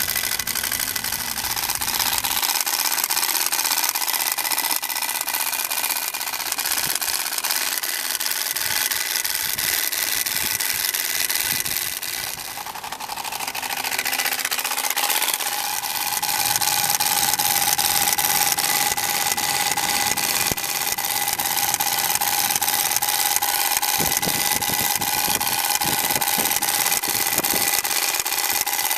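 TURBOSPOKE bicycle exhaust: a plastic motor card flapping against the spokes of the turning wheel, its rapid clatter sent through the plastic exhaust pipe into a steady motorbike-like buzz. It dips briefly about twelve seconds in, then picks up again.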